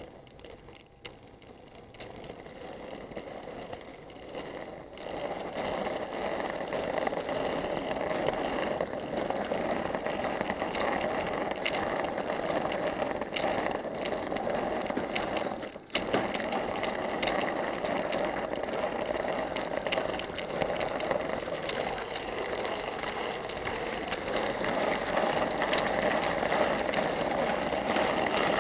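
Model railway goods wagons rolling along the track, a continuous metallic rattle of small wheels on rail with fine clicks over the rail joints, heard from on board the train. It grows louder over the first several seconds, then runs steadily.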